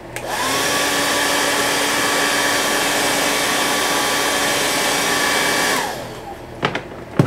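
Handheld hair dryer blowing on a freshly airbrushed clear Lexan RC body to dry the paint. Its motor whine rises as it spins up, holds steady for about six seconds, and drops away when it is switched off. A sharp knock comes near the end.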